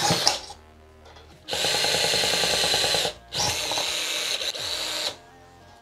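Cordless drill boring through a steel strip. The run stops about half a second in, then the drill runs twice more, each time for about one and a half seconds with a short break between.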